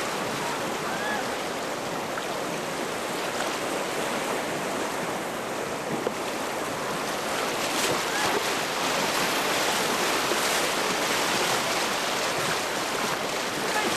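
Steady rush of fast river water around an inflatable raft running the Skagway River's rapids, growing a little louder about halfway through.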